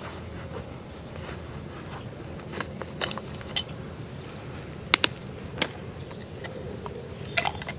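Scattered sharp snaps and crackles of dry leaves and twigs underfoot as a person shifts on the forest floor, the loudest pair about five seconds in, over a steady high insect drone.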